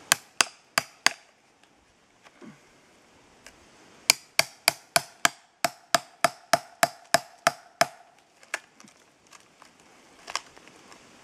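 Hammer striking a chisel to cut a chaga conk off a birch trunk. Four quick blows near the start, then after a pause a fast, even run of about a dozen blows at roughly three a second, and one more blow near the end.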